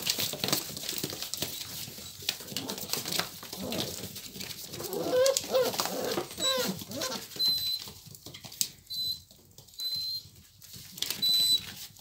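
English setter puppies whining and squeaking in their box, with scratching and scuffling of paws. The whines waver up and down about halfway through, and a run of short high squeaks follows in the second half.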